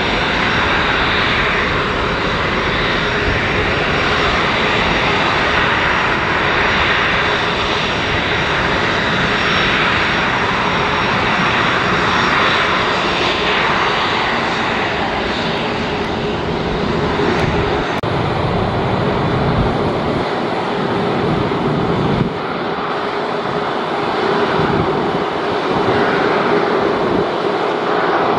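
Boeing 737-400's CFM56-3 turbofan engines running at low taxi power. A steady jet whine sits over a broad engine rush, and the deep rumble thins out over the last several seconds as the aircraft nears its stand.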